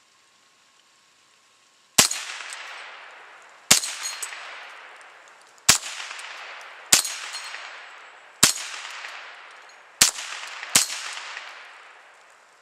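Seven rimfire gunshots at uneven gaps of about one to two seconds, each followed by a short echo. Steel spinner target paddles ring faintly as they are hit and flip over the bar.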